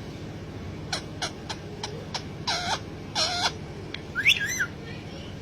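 Pet parrot calling: a few short sharp chirps, then two longer calls with bending pitch, and a rising-and-falling call near the end.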